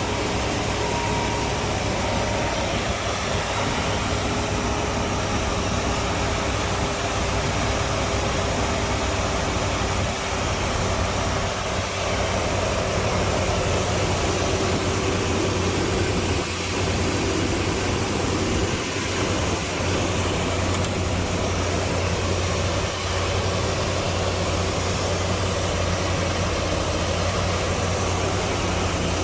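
1976 Dodge D200 pickup's engine idling steadily.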